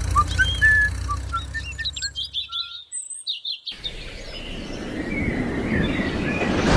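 Birds chirping and whistling short calls over a low steady hum; the sound cuts off about three seconds in. After a moment of silence, a rushing noise builds up.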